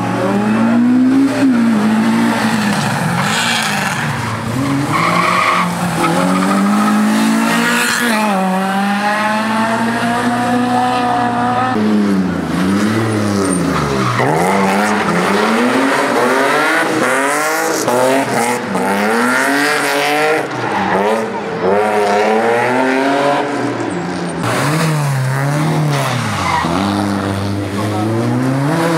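Competition car's engine revving hard and falling back again and again through short bursts of acceleration, braking and gear changes on a slalom course, with tyres squealing.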